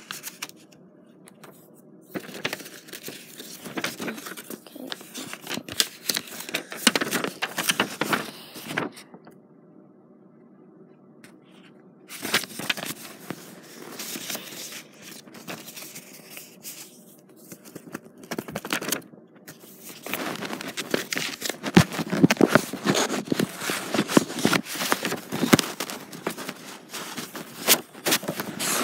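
Close rustling and scraping handling noise on the phone's microphone, in irregular stretches with quieter pauses about a second in and from about nine to twelve seconds in. It gets busier and louder in the last third.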